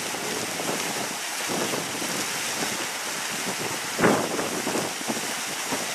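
Steady rushing outdoor noise with faint distant voices of people around, and a brief louder sound about four seconds in.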